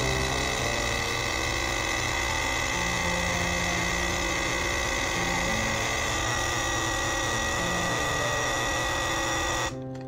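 Nespresso capsule machine's pump buzzing steadily while it brews coffee, cutting off suddenly near the end as the brew finishes. Soft background music with held notes plays underneath.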